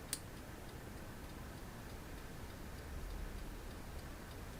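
Sanyo STD-1410 cassette deck's tape transport running with a faint, even ticking, and one sharp click just after the start, while its auto stop is tested.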